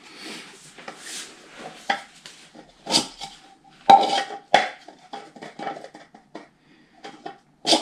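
A 3D-printed plastic center cap being fitted into and pulled out of wheel hubs: a run of sharp clicks and knocks with handling clatter between them. A few of the knocks ring briefly, and the loudest comes about four seconds in.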